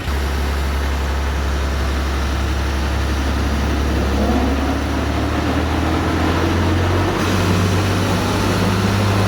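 Tractor running, with a whining tone that rises in pitch about four seconds in. The strange sound comes from the crown wheel and pinion and is the sign of a pitch (gear mesh) problem.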